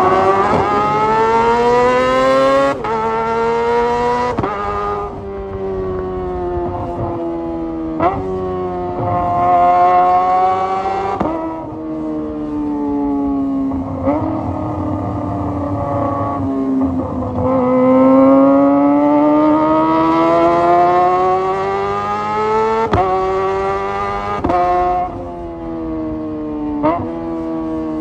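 Kawasaki ZX-25R's 249 cc inline-four engine through a Leo Vince GP Corsa Evo short full-system exhaust, loud and high-revving. It is accelerating up through the gears, its pitch climbing and dropping sharply at each upshift. Midway it eases off and falls, then pulls hard again with more quick upshifts near the end.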